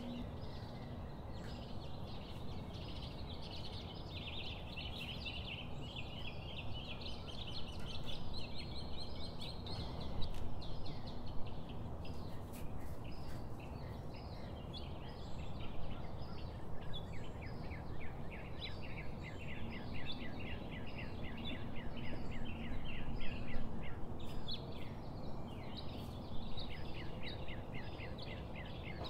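Gulab jamun dough balls frying in hot oil in a pan: a continuous sizzle of dense, fast crackling that thickens for a few seconds at a time.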